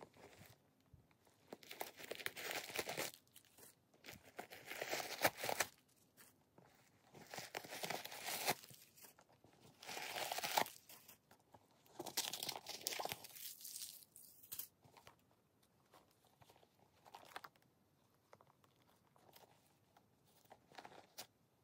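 Hands handling a new leather crossbody bag: its zips are pulled open and the compartments are rummaged, giving a run of short zipping, scraping and crinkling noises. They are busiest in the first two-thirds and fainter near the end.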